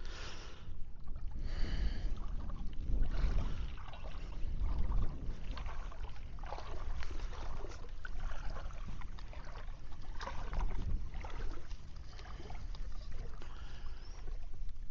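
Shallow water sloshing and splashing irregularly, with wind rumbling on the microphone.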